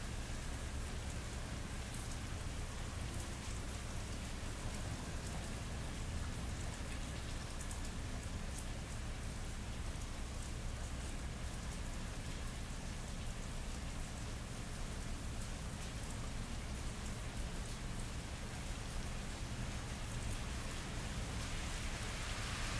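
Steady rain falling on wet pavement, with many individual drops ticking close by and a steady low hum of the city beneath. The rain's hiss swells a little near the end.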